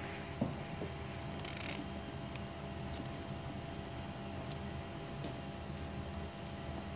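Hands working a wiring bundle and cable ties: faint clicks and brief rustles over a steady low hum, with a light knock about half a second in.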